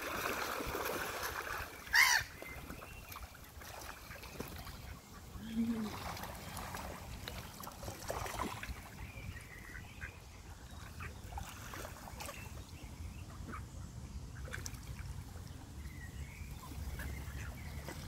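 Mallard ducks splashing and quacking as they scramble for food in the water, with a loud call about two seconds in and scattered short calls from black-headed gulls later on.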